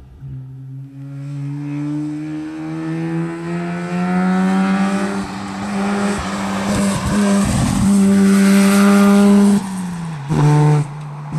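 A classic rally car's engine coming up the stage under hard acceleration, its note climbing steadily for about nine seconds. It then falls away as the driver lifts off, with a short burst of throttle and a brief dip just after.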